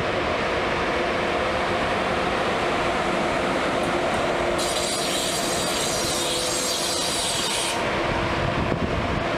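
Deutsche Bahn ICE 1 (class 401) high-speed train passing close by, with the steady noise of its wheels on the rails. A high hiss rises over it for about three seconds in the middle.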